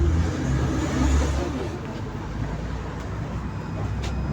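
Inside a 71-623 tram: a steady low hum and rumble of the tram running. Faint voices are heard in the first second or two, and there is a single sharp click near the end.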